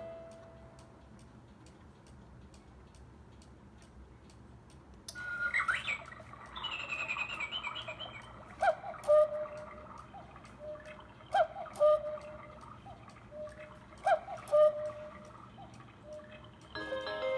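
Quartz Lötscher chalet cuckoo clock ticking softly, then playing recorded birdsong chirps from about five seconds in, followed by its electronic cuckoo call, a falling two-note 'cu-ckoo', three times about two and a half seconds apart.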